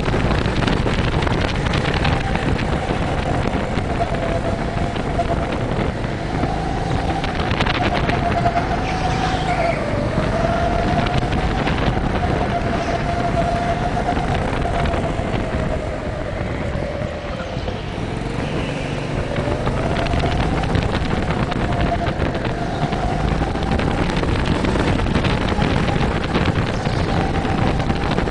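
Go-kart engine running hard around an indoor track, heard from on board. Its note rises and falls with speed, dropping in pitch about ten seconds in and again around seventeen seconds as the kart slows for corners, then climbing back up.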